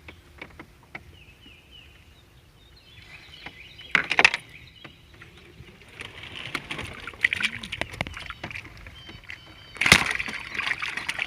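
Water sloshing and splashing with a few sharp knocks as caught sunfish are handled, loudest about four seconds in and again near the end.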